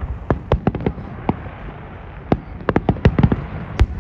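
Fireworks exploding: irregular clusters of sharp bangs and crackles, with a loud bang near the end.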